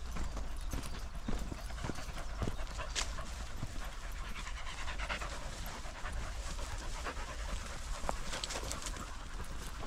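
A dog panting close by, over irregular footsteps on a dirt path.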